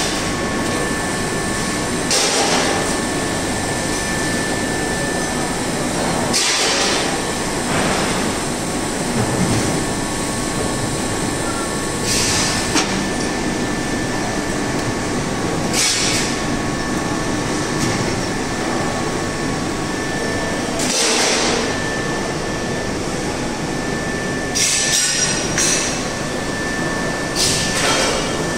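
Foundry shop-floor machinery running: a dense, steady mechanical din with a faint high steady tone, broken about every four seconds by short bursts of noise.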